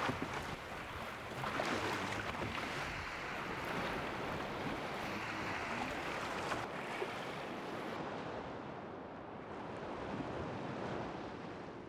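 Sea waves washing, with wind, in swells that rise and fall every second or two.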